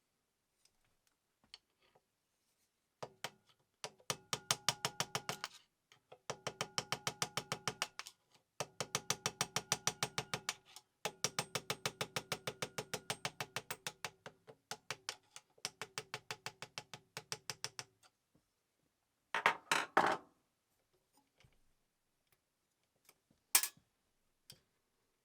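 Singer 15-class sewing machine running in several bursts of rapid, even clicking, about ten strokes a second, with short stops between bursts. A brief rattle and a single sharp click follow near the end.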